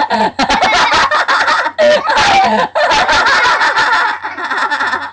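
People laughing hard in loud, high-pitched cackling bursts, broken by a few short pauses for breath.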